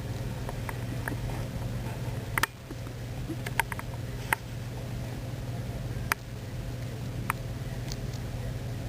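Pet hedgehog stirring in its igloo: a handful of short, sharp clicks and taps, scattered and irregular, over a steady low hum.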